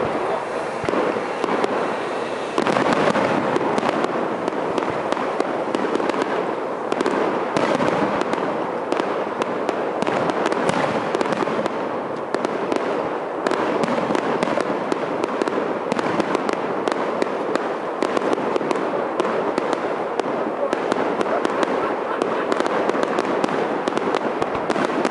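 Fireworks display: aerial shells bursting and crackling in a dense, continuous barrage of bangs with no let-up.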